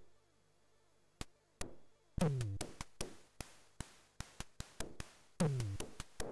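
Commodore 64 SID chip music: a sparse synthesized drum pattern. Kick drums drop sharply in pitch about two seconds in and again about five seconds in, with short clicky hits between them and brief gaps of silence.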